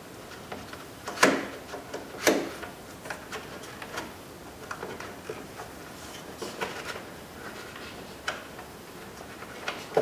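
Clicks and knocks of a plastic interior door handle and its metal linkage rods as the rods are worked into the handle: two louder knocks a little over a second and about two seconds in, then scattered light ticks.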